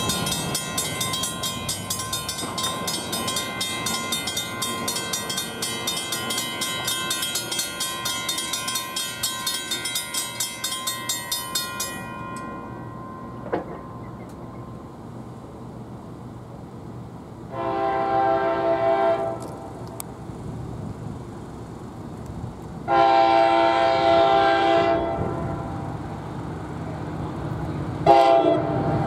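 Grade-crossing warning bell ringing rapidly as the gates lower, stopping about twelve seconds in. Then an approaching NJ Transit GP40PH-2B locomotive's K5LA multi-chime air horn sounds two long blasts and a short one, the crossing signal.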